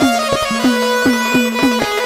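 Instrumental interlude of gondhal devotional music: a held-note melody stepping from note to note over steady drum strokes, about three a second, each stroke dipping slightly in pitch.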